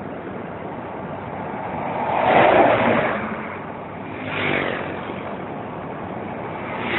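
Steady road and wind noise from riding in a moving vehicle, with other vehicles passing close by: the loudest swells up and fades about two and a half seconds in, a smaller one about four and a half seconds in, and a brief one at the end.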